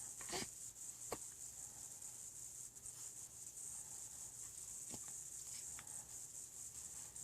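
A three-week-old baby hiccuping: short, sharp little catches, two about a second apart near the start and two fainter ones later, over a steady faint hiss.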